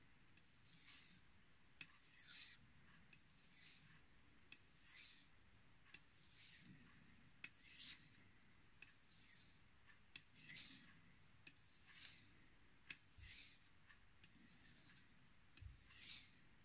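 Knife blade being stroked across a wet 2000-grit Chinese natural whetstone covered in slurry: faint, regular rasping swipes, about one every 1.3 seconds, with a few light clicks between strokes.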